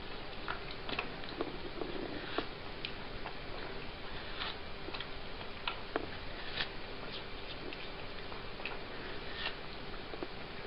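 A cat biting and chewing a slice of watermelon: irregular short crunches and clicks, a few a second, some louder than others.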